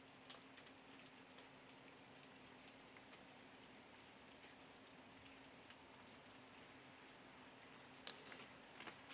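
Faint light rain: a soft hiss with scattered drops ticking, over a low steady hum, with one sharper tick near the end.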